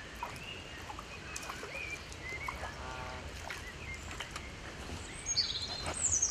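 Lakeside ambience: a steady low rumble of wind and water with scattered short bird chirps, and brighter, higher falling calls near the end. A small splash near the end as a small rudd is lifted clear of the water on a float rod.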